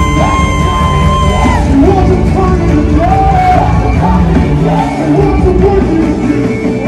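Loud live worship music: a singer slides up into a long held note at the start, then sings shorter phrases over a full band, with the audience singing along.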